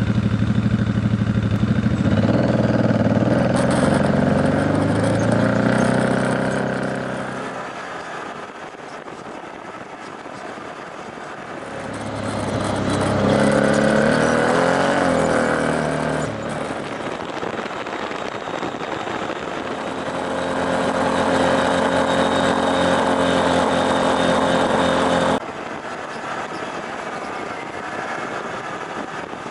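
Off-road side-by-side vehicle engine running on a dirt trail, its pitch rising and falling as the throttle changes and easing off for a few seconds in the middle. The sound drops off abruptly about 25 seconds in.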